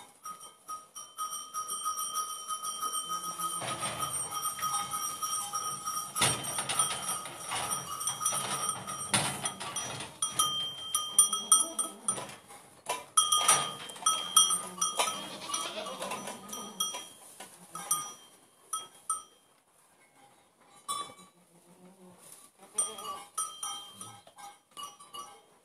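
Small metal bell on a goat's collar clinking and ringing repeatedly as the goat moves its head, with several sharp strikes of the clapper. The ringing stops about three quarters of the way through, leaving a few scattered clinks near the end.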